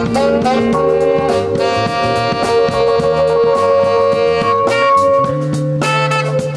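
Small jazz band playing live: saxophone over electric keyboard, bass guitar and drum kit. The band holds a long chord for about three seconds, then the drums come back in under a low bass note.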